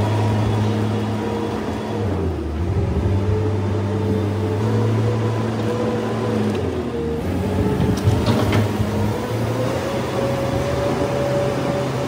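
Diesel engine of a compact wheel loader running steadily as it drives over a slatted barn floor pushing a scraper attachment, with a brief metallic clatter about eight seconds in and the engine speed edging up after it.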